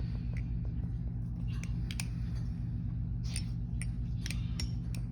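Balisong (butterfly knife) being flipped: the metal handles click and clack against each other and the blade at irregular intervals, more often in the second half.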